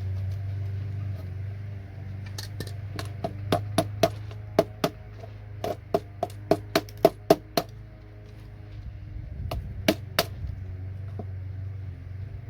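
Hammer blows knocking connectors off a computer circuit board: a fast run of about fifteen sharp metallic strikes, each with a brief ring, then two more strikes a couple of seconds later. A steady low hum runs underneath.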